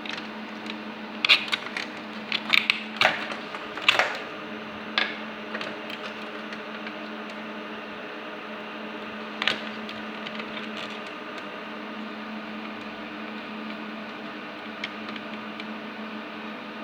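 A steady electrical machine hum with a low tone. Sharp clicks and taps of small hard parts being handled come in the first few seconds and once more about halfway through.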